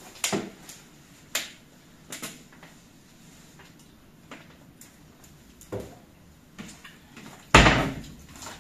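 Kitchen clatter: several sharp knocks and clicks of things being handled and set down around the counter and cupboards, with a heavier bang a little before the end.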